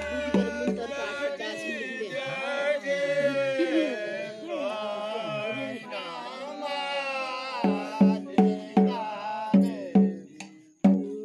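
Voices singing a wavering folk melody. About seven and a half seconds in, a drum takes over, beating steadily at two to three strokes a second.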